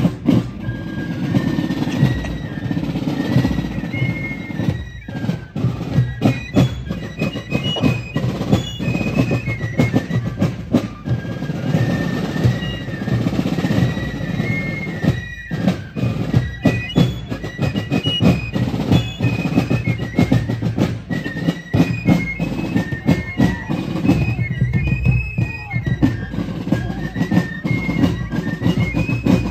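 Fife and drum corps playing a march. Fifes carry a high melody over a steady rhythm of drum strokes.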